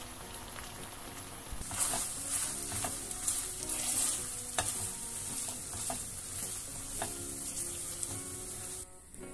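Chicken pieces sizzling in garlic butter sauce in a non-stick frying pan. From about two seconds in, a spatula stirs them, with scattered scrapes and taps against the pan. The sizzling cuts off just before the end.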